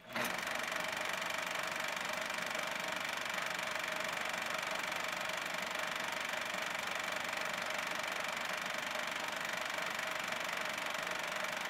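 8 mm film projector running: a steady mechanical whirr with constant tones, starting a moment in and holding unchanged.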